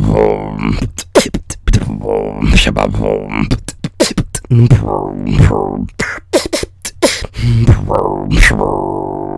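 Solo beatboxing: sharp mouth-percussion clicks and snare hits mixed with held, pitched vocal tones, in an uneven rhythm.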